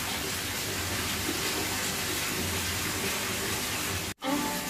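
Steady rushing of running water in a fish pond. It cuts off abruptly near the end, and music begins.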